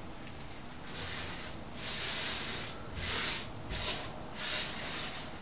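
Hands rubbing and sweeping crushed, crumbly powder across a smooth countertop: a run of about five gritty swishes, the longest and loudest about two seconds in.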